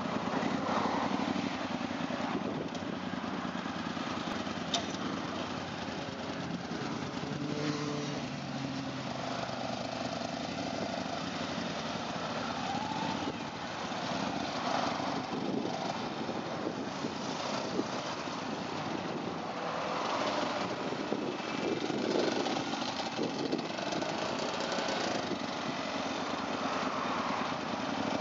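Several motorcycle engines running at low speed, the pitch rising and falling as throttles open and close during slow tight turns, over a steady bed of outdoor noise.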